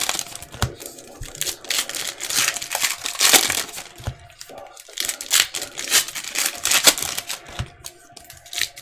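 Trading-card pack wrappers crinkling and tearing as packs are opened, with cards slid and flipped through in hand: a continuous run of irregular crackles and rustles.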